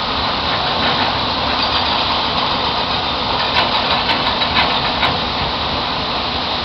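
Heavy rain pouring steadily, with a handful of sharp taps a little past the middle.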